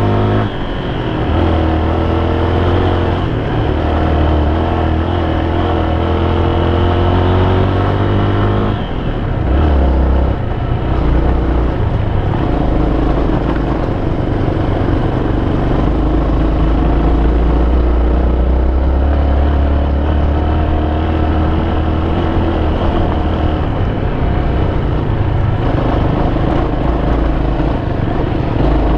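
Honda XR250 Baja's single-cylinder four-stroke engine under way on a gravel road, heard from the bike itself. The engine note climbs in pitch for the first several seconds, drops abruptly around nine seconds in, then runs steadier.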